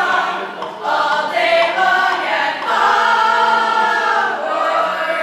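Several voices singing together in harmony, with long held notes in the middle.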